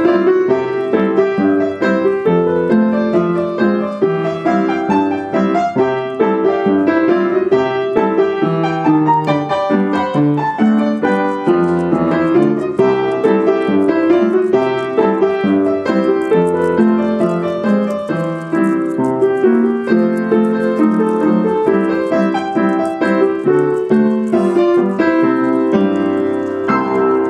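Piano music made up of many quick notes.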